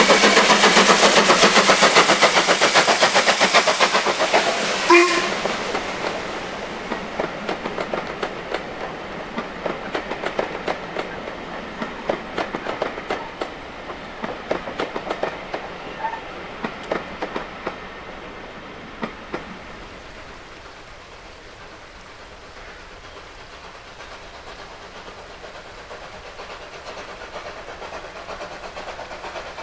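A train passes close by and then draws away: loud, rapid clattering of wheels over the rail joints that thins to spaced clicks and fades over the next fifteen seconds or so. A short, sharp tone sounds about five seconds in.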